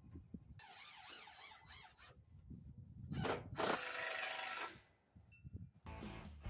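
Power driver sinking large deck screws into a wooden post and beam: a rasping spell, then about a second of steady motor whine that cuts off, the loudest sound here. Guitar music comes in near the end.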